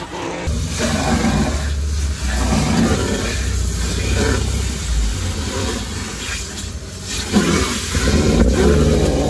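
Vacuum hose sucking across the car's back seat: a loud, steady rush over a low motor hum, wavering as the nozzle moves.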